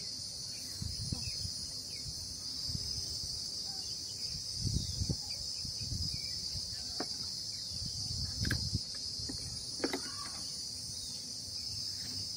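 A steady, high-pitched insect chorus, with several soft knocks and clicks from plastic bottles and a pump sprayer being handled.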